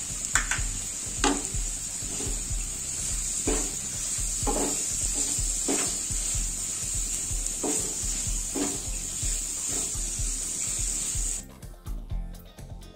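Sliced onions sizzling in hot oil in a nonstick frying pan, stirred with a wooden spatula that knocks and scrapes against the pan about seven times. The sizzle stops abruptly near the end.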